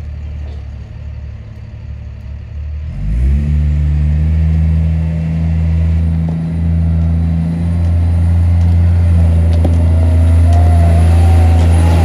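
Cat 928G wheel loader's diesel engine running at low revs, then revving up about three seconds in and holding high revs as the machine drives. A thin whine, slowly rising in pitch, joins near the end.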